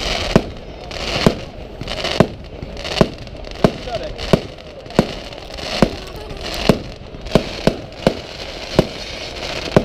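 Aerial fireworks bursting: a rapid series of sharp bangs, about one every 0.7 seconds, as white star shells burst overhead.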